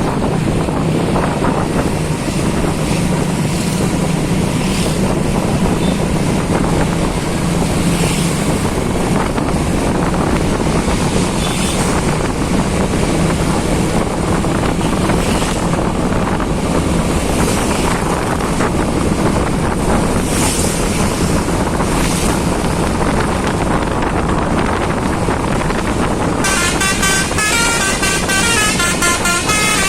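Steady rushing wind and road noise with a low engine drone. About 26 seconds in, a bus's telolet basuri multi-tone horn starts playing a quick melody of stepping, rising and falling notes.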